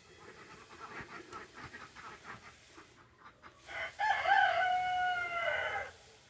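A rooster crowing once, one long call of about two seconds that starts about halfway through. Short clucking notes come before it.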